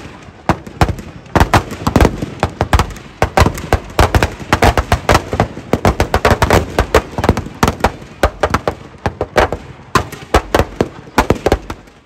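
Firecrackers going off in a rapid, irregular string of loud bangs, several a second.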